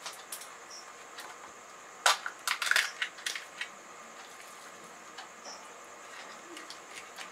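Crisp fried puri shell crackling as fingers break a hole in its top: a quick cluster of sharp cracks about two seconds in, then a few lighter ones.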